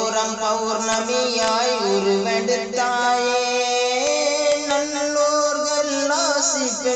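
A song: a singer holding long notes with wavering, sliding ornaments over a musical accompaniment, changing note a couple of times.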